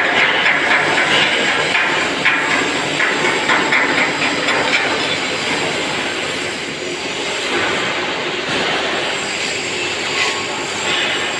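Electric welding arc crackling and hissing steadily as a bead is run, with small fluctuations in the crackle; it dips slightly in loudness about two-thirds of the way through.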